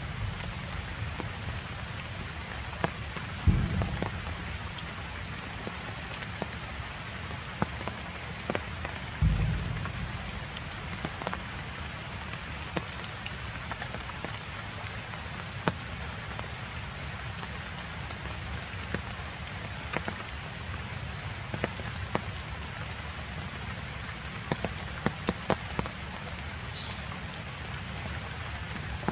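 Steady rain falling, with scattered sharper drop ticks. Two low thumps about three and a half and nine seconds in, and a brief high chirp near the end.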